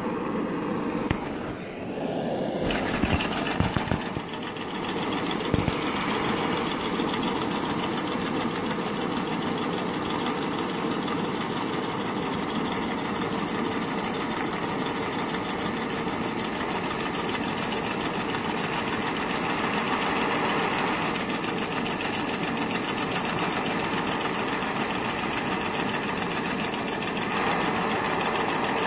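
Homemade miniature two-piston steam engine running fast with a rapid, even mechanical chatter over the steady hiss of the gas torch heating its boiler. The hiss comes in about three seconds in, with a few sharp clicks over the next few seconds.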